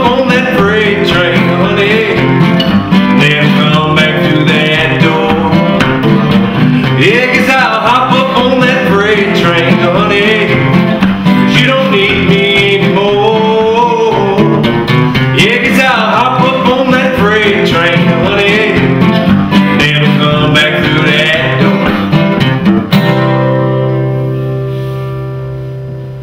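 Two acoustic guitars strummed together with a man singing a country-style song. About three seconds before the end the strumming stops on a final chord that rings and fades away.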